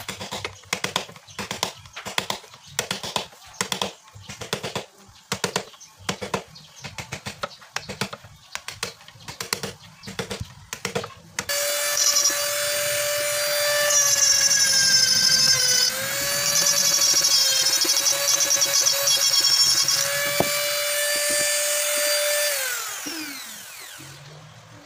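A hammer drives a chisel into hardwood ebony at about two blows a second. Then, about 11 seconds in, a handheld electric rotary tool starts grinding out the inside of the cup: a steady high whine that sags in pitch when the bit bears into the wood, then winds down with a falling pitch after it is switched off near the end.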